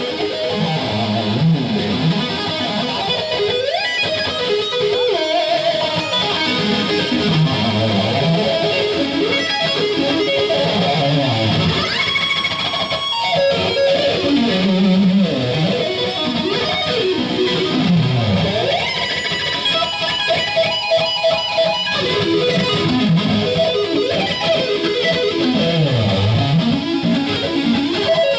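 Live electric guitar solo played loud through a concert PA, with no drums, its notes often sliding up and down in pitch.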